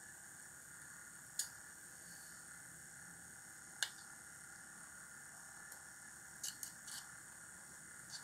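Faint steady electrical whine with about six isolated sharp clicks of small tools being handled on a workbench: one at a time early on, then three in quick succession and one more near the end.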